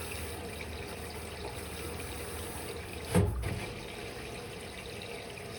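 Water running steadily in an Electrolux Quickwash commercial washing machine, with a single heavy thump a little over three seconds in.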